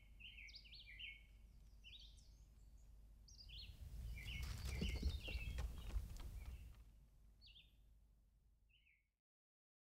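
Small birds chirping over and over in short, falling chirps. About three and a half seconds in, a louder stretch of crunching and clicking rises, then fades. All sound cuts off about nine seconds in.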